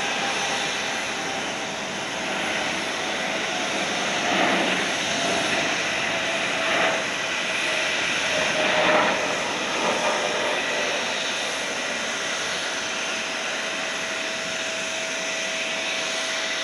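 Steady jet aircraft noise across the airport apron: distant jet engines running with a constant whine over a wide rush, swelling briefly a few times in the middle.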